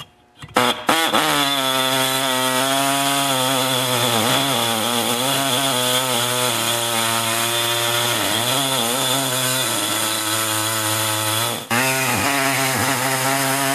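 Ingersoll Rand model 429 pneumatic reciprocating air saw cutting through a steel bolt clamped in a vise: a loud, steady buzzing run with air hiss, its pitch wavering slightly. It starts about half a second in, stops for an instant about two seconds before the end, and starts again.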